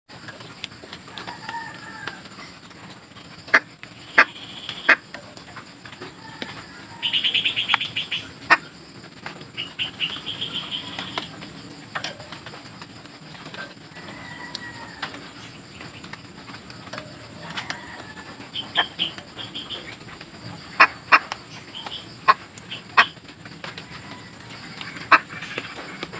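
A white egret stirring and flapping inside a wire-mesh cage: a scatter of sharp knocks and several short, fast fluttering rattles, the longest about seven seconds in. A few soft, short bird calls sound in the background.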